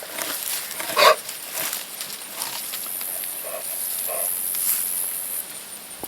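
An animal calling: one loud call about a second in, then two fainter calls a few seconds later.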